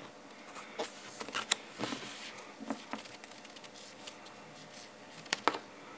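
Soft scattered clicks and rustles of sleeved Pokémon trading cards being handled, with a few sharper ticks, one about a second and a half in and two close together near the end.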